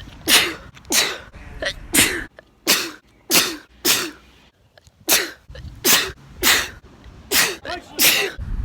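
Human sneezes, about a dozen, one after another in quick succession, each a short rising breath then a sharp burst. There is a brief pause a little past halfway. The background noise shifts abruptly between them, as separately recorded sneezes are cut together back to back.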